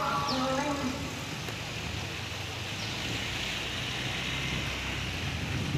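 Steady hiss of rain falling over a low, even rumble, with a guitar tune fading out at the very start.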